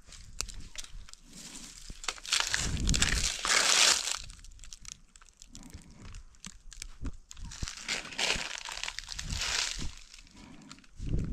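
Dry leaf litter and brush rustling and crackling as long vine stems are pulled and dragged through dry undergrowth by hand, in two louder spells: one about two to four seconds in and another about eight seconds in.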